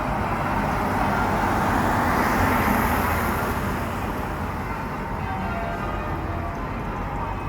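Church bells ringing, with a vehicle passing close by: its noise swells to loudest about three seconds in, partly covering the bells, and then fades.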